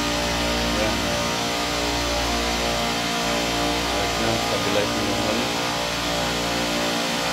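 Steady hum of a running Copeland Scroll Digital refrigeration compressor on a rack system, holding an even tone throughout.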